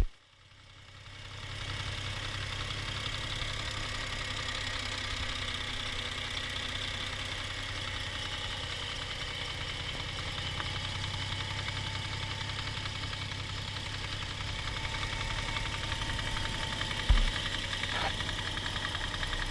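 Toyota 1G-FE straight-six idling warm, with a foreign knock from the front of the engine under the timing cover, which the owner suspects is the VVT-i coupling. A single short thump sounds about 17 seconds in.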